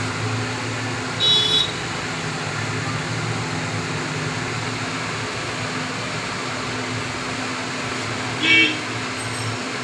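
Steady street traffic noise with a low engine hum. A vehicle horn toots briefly about a second in, and again near the end.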